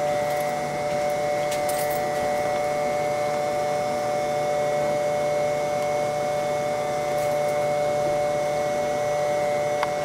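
A steady hum made of several constant tones over an even rushing noise, like a pump or blower running without change.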